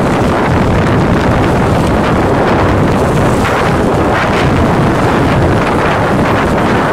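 Steady wind noise buffeting the microphone on a moving motorcycle, with road and traffic noise underneath.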